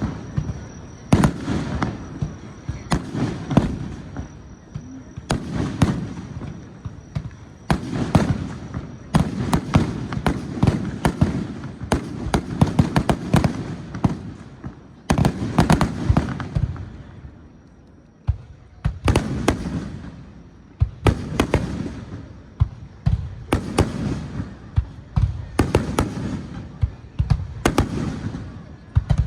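Fireworks display: shells bursting one after another in quick, irregular succession, sharp bangs over a low rumble, with a brief lull a little past the middle.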